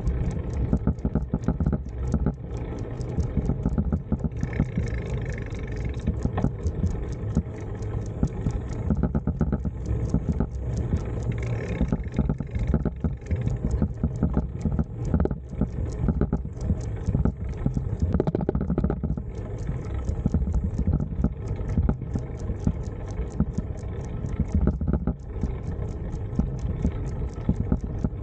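Bicycle rolling along asphalt, heard as a steady low rumble of tyres and wind on the camera microphone, with a fast, even run of small ticks over it.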